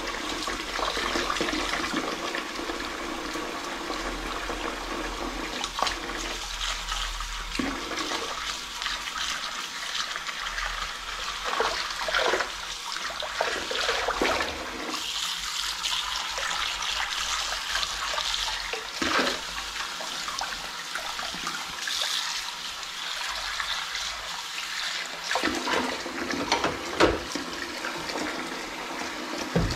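Kitchen tap running steadily into a sink while a ceramic bowl is scrubbed with a sponge under the stream. Dishes clink and knock against the sink now and then.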